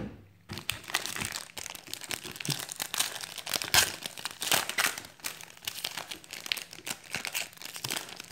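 A sharp click at the very start, then a foil trading-card pack of 2016 Certified football cards being torn open and crumpled by hand: dense crinkling and crackling for several seconds.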